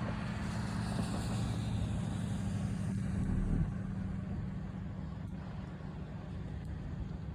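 Steady low hum of a running vehicle engine under a broad hiss; the sound eases after about three and a half seconds.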